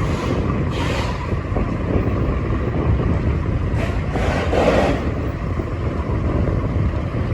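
A vehicle travelling on a wet road in rain: a steady low rumble with tyre and spray hiss that swells about a second in and again around four to five seconds in.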